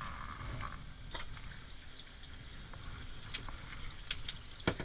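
Low rumble and trickle of running water in a grooming tub, with scattered clicks and knocks as the rubber bathing hose is handled, and one sharp knock near the end.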